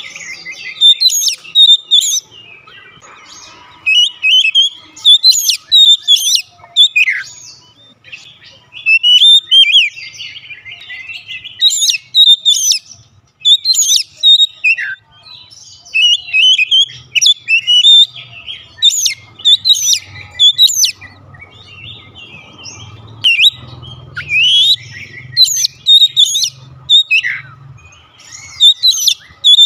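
Oriental magpie-robin singing: loud, varied whistled phrases and chirps coming in bursts every second or two, with now and then a long downslurred whistle.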